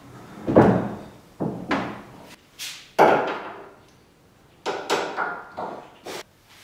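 Tools and bolts clanking against a steel-tube aircraft engine mount while an engine is being bolted onto it: a string of irregular sharp metal knocks, each with a short ring, loudest about half a second in and again at three seconds.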